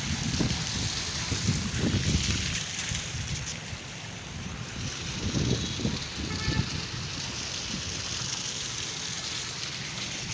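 Heavy rain falling, a steady hiss with gusts of wind buffeting the microphone.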